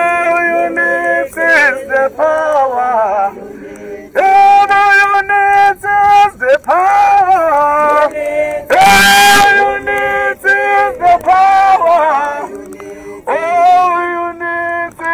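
A man leads a protest song, singing through the handheld microphone of a portable megaphone, with marchers singing along. A harsh, noisy burst cuts through about nine seconds in.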